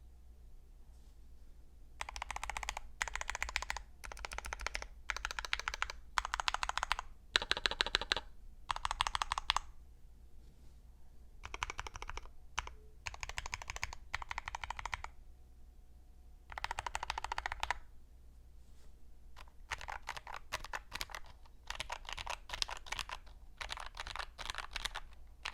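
Typing on a Tokyo60 mechanical keyboard with Gateron CJ linear switches and Domikey Deserted Island keycaps, dampened with Poron switch pads and Sorbothane in the case. Rapid keystrokes come in bursts of a few seconds with short pauses between, starting about two seconds in.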